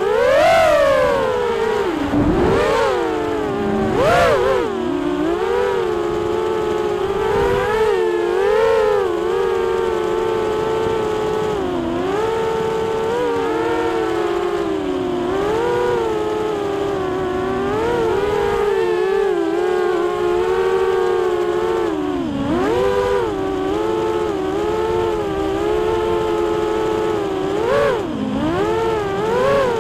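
The four Multistar Elite 2306 2150kv brushless motors of a QAV210 FPV quadcopter, spinning 5-inch Dalprop propellers on a 4S battery, whining as heard through its on-board camera. The pitch keeps rising and falling with throttle, with sharp upward swoops about half a second in, a few seconds in, and near the end.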